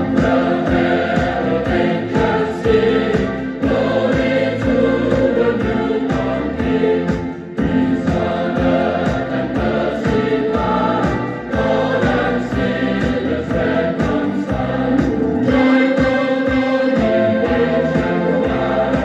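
A choir singing a Christmas carol with instrumental accompaniment, played from a record on a Bush SRP51 record player.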